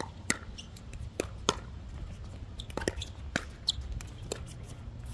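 Pickleball rally: a string of sharp pops as paddles strike the plastic ball and the ball bounces on the hard court, with a few brief sneaker squeaks. Wind rumbles on the microphone throughout.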